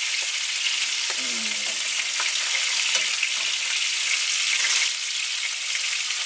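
Breaded razor clams frying in hot coconut oil in a skillet: a steady sizzle with small crackles, and the occasional light clink of metal tongs as the pieces are turned.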